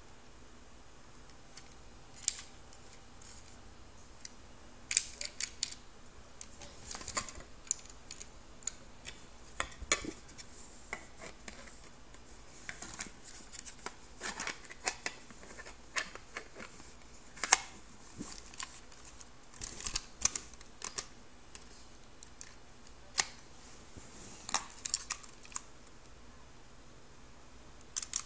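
Pistol being handled: scattered sharp, metallic clicks and short rattles at irregular intervals, some in quick clusters.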